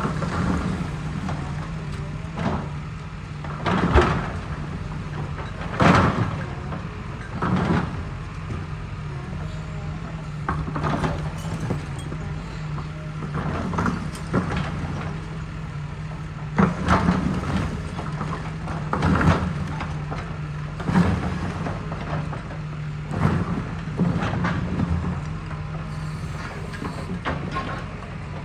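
Cat hydraulic excavator's diesel engine running steadily while its bucket and thumb tear into a building, with repeated bangs and clatter of falling masonry and rubble every couple of seconds, the loudest about four and six seconds in.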